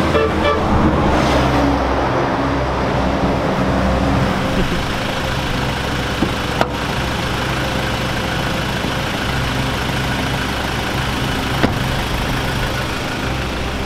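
Ford Ranger pickup's engine idling steadily, a low hum. A sharp knock about six and a half seconds in as a door shuts, and another short click near the end.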